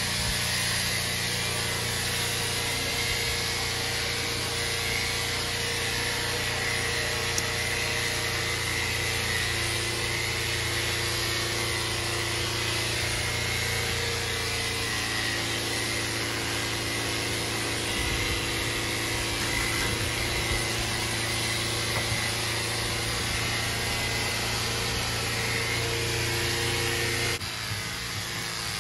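Electric horse clippers running steadily, a continuous motor hum with a high buzz as the blades cut through a horse's coat.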